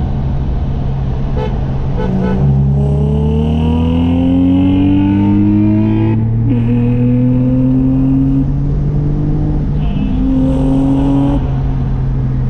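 Acura TL Type-S's 3.5-litre V6 with an aftermarket J-pipe and exhaust, heard from inside the cabin, cruising steadily and then accelerating at full throttle in third gear from about 40 mph. The revs climb for about four seconds, drop with an upshift about six seconds in, climb again more slowly, and fall away as the driver backs off about eleven seconds in.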